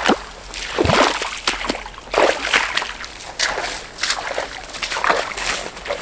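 A hiker's footsteps squelching and splashing through a waterlogged, boggy meadow at a steady walking pace.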